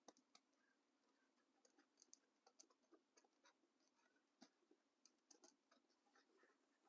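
Faint scratching and small ticks of a ballpoint pen tracing an outline on a rubber boot sole.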